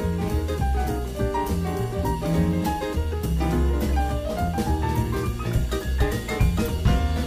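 Instrumental background music with a walking bass line and a steady drum beat.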